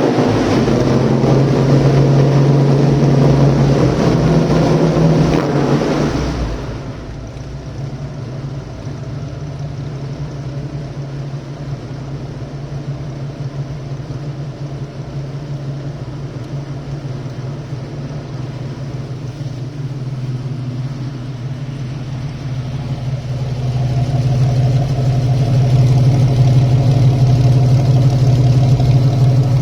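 1975 Chevrolet Opala Comodoro's engine rumbling. It is loud with a broad rush of sound for the first six seconds or so, then settles to a quieter steady idle. About 24 seconds in it grows louder again and holds there.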